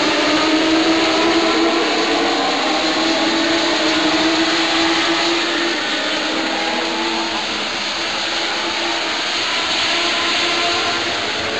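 A pack of Legend race cars running at speed, several high-revving motorcycle engines overlapping, their pitches sliding up and down as the cars pass.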